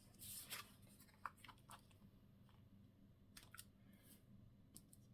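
Faint handling of paper craft pieces: a soft rustle about half a second in, then scattered light clicks and taps.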